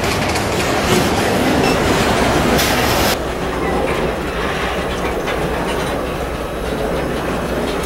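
Freight train wagons rolling past close by, with a run of repeated knocks from the wheels. About three seconds in, the sound cuts to a lower, steadier rumble of a second freight train with a locomotive at its head.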